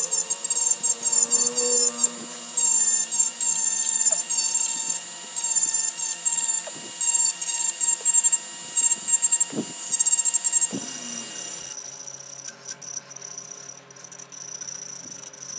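Electric rotary tool with a carving burr grinding into the wooden stem of a goblet in repeated short bursts, each about a second long, as the burr is pressed to the wood and lifted off. About twelve seconds in the grinding stops and only a quieter steady high whine is left.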